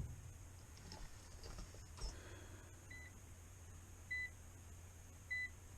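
Short high-pitched electronic beeps, one about every second and a quarter starting about three seconds in, over a steady low electrical hum.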